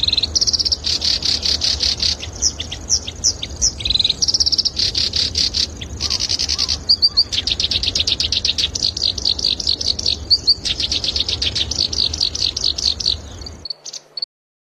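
Black-browed reed warbler singing a fast, chattering song of rapid trills and buzzy repeated notes, stopping abruptly near the end.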